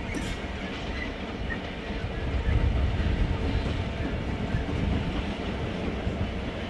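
A Class 66 diesel locomotive's two-stroke EMD V12 engine running as the locomotive passes slowly at the head of a freight train. It grows louder a little over two seconds in and then holds steady.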